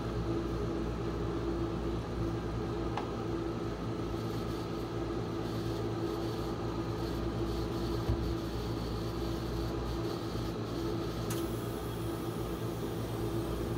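Steady hum of the rolled-ice-cream cold plate's refrigeration unit, a low drone with a few fixed tones. A small click about three seconds in and a soft knock about eight seconds in.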